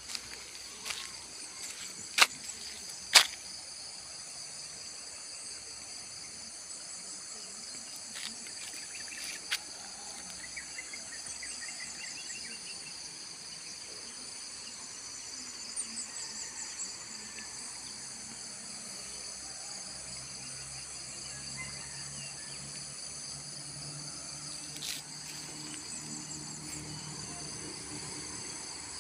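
Steady, high-pitched chorus of insects droning continuously. Two sharp clicks stand out about two and three seconds in.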